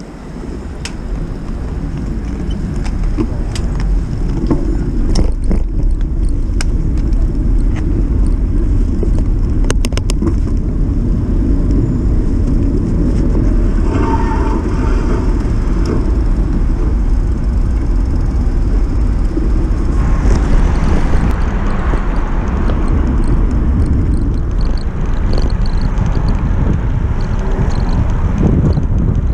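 Steady low rumble of wind and road noise at a camera riding on a moving bicycle in city traffic, building up over the first few seconds as the bike gets going, with a few sharp clicks in the first ten seconds.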